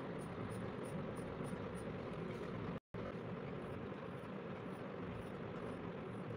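Steady background noise with faint, quick pencil strokes scratching on paper, about three a second. The sound cuts out completely for an instant about three seconds in.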